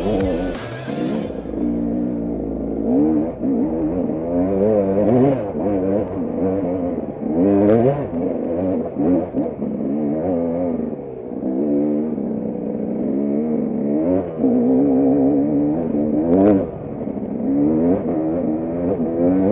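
Enduro motorcycle engine revving up and down over and over as the throttle is opened and closed on a rough trail, with a couple of sharp knocks.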